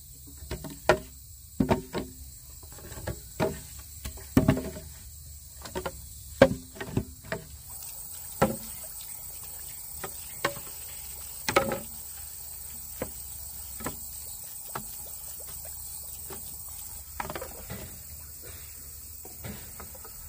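A series of irregular knocks and clacks, closely spaced for the first several seconds and thinning out to occasional single knocks, over a faint steady hiss.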